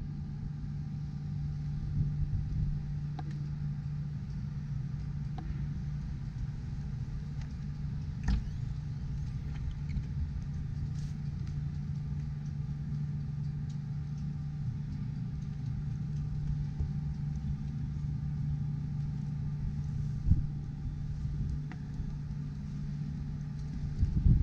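A steady low machine hum over uneven low rumbling, with a few faint knocks.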